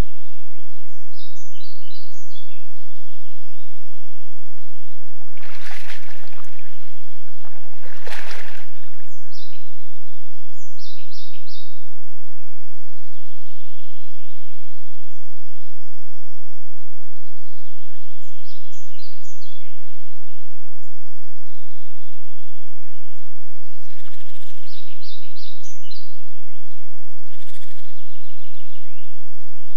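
Songbirds singing short repeated chirping phrases. A brown bear wallowing in a muddy puddle makes two brief splashes about six and eight seconds in as it shifts its body in the water, over the steady low hum of a trail camera's recording.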